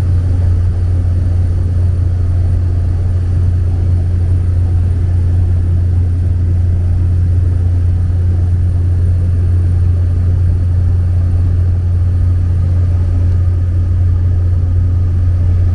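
Steady engine and propeller drone of a small passenger plane in cruise, heard from inside the cabin, with a strong low hum that doesn't change.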